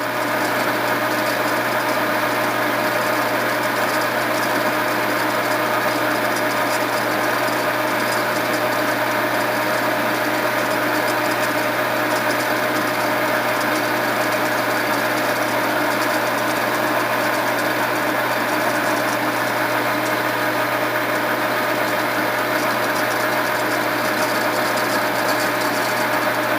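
Lathe spinning a 3/16-inch end mill at about 460 RPM while it is slowly fed into a shaft, cutting a keyway: a steady machine drone with a few steady tones.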